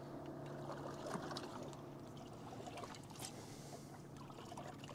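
Faint water lapping and trickling against a fishing boat's hull, over a low steady hum and a couple of light clicks.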